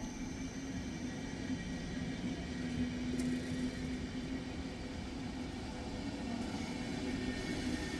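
Electric train running: a steady rumble with a low hum and faint whining tones above it.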